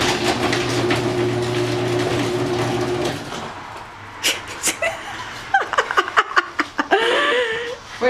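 Electric garage door opener motor running with a steady hum for about three seconds, then stopping. Scattered clicks and knocks follow, with short vocal sounds near the end.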